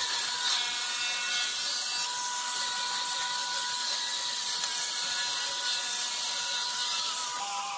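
Angle grinder with a sanding pad, running steadily while it sands the curved edge of a wooden board. It makes a steady motor whine over the rasp of the abrasive on the wood.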